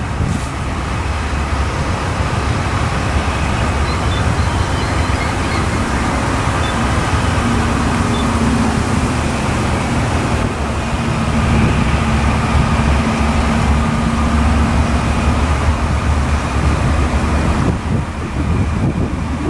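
Steady low rumble of a distant diesel-hauled freight train mixed with road traffic and wind on the microphone, with a faint steady hum from about three seconds in to about fifteen seconds in.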